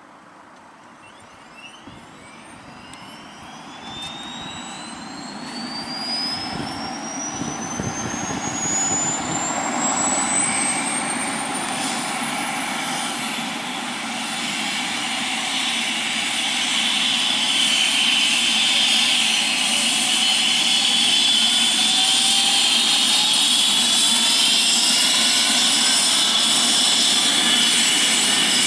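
Rescue helicopter Christoph 36 starting its turbine engines: a thin whine rises steadily in pitch over the first ten seconds or so while the sound grows louder, then settles into a steady, loud turbine and rotor run as the rotor comes up to speed.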